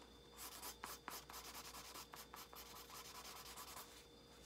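Marker scribbling on a paper coffee filter in quick, short strokes, faint; it starts about half a second in and stops about four seconds in.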